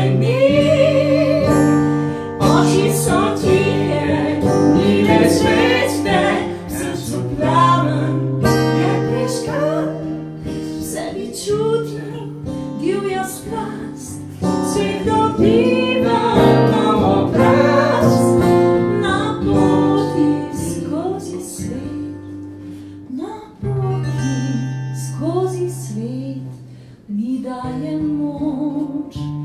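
A woman singing a Slovenian song over a strummed acoustic guitar, performed live.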